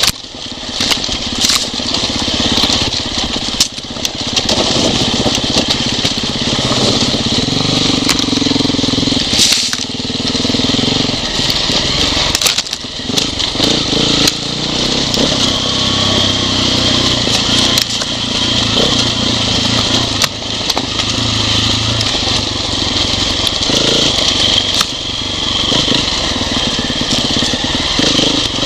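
Off-road motorcycle engine running over a rough, rocky trail, its note rising and falling with the throttle, with stones and debris clattering in sharp clicks throughout.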